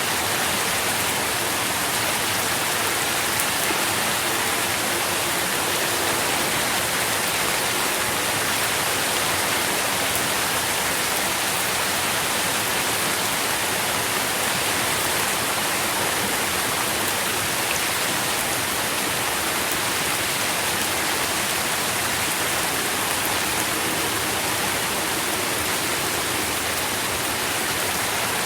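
Steady rain falling, a constant even hiss of many drops with no distinct single drips or changes.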